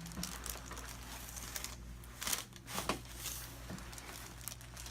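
Crinkling and rustling as a patient shifts on a chiropractic treatment table, with a few sharp clicks about two to three seconds in.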